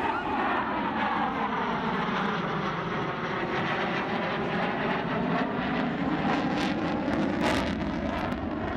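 Grumman F-14B Tomcat with twin GE F110 turbofan engines making a fast, low pass at about 450 knots. The jet noise is loud and steady, with its pitch sweeping as the aircraft goes by, and a crackle late on.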